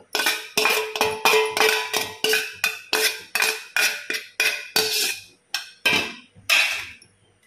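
Steel spoon tapping and knocking against a stainless steel bowl and plate while the last of a raw egg batter is scraped out: about eighteen sharp clinks, roughly three a second, each ringing briefly, spacing out near the end.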